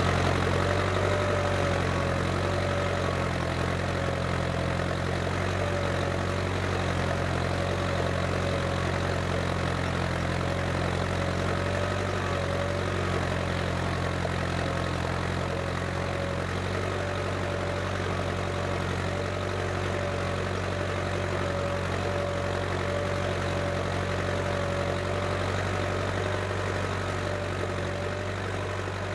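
Case International 885XL tractor's diesel engine running steadily, as when pulling a plough, with a whine above the engine note that wavers slightly in pitch. It eases off a little near the end.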